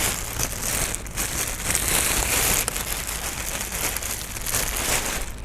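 Wind gusting over the microphone, a rough, uneven rushing with a low rumble, mixed with crinkly rustling.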